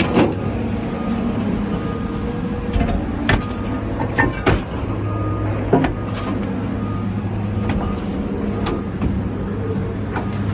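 Engine of a working scrap-yard crane running steadily close by and loud, with scattered sharp clanks of metal and a short beeping alarm coming and going.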